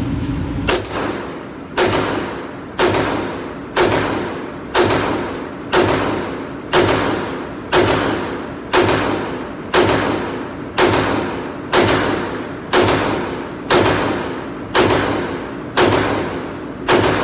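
Glock 19 9mm pistol fired in a steady string, about one shot a second, each shot echoing off the walls of an indoor range.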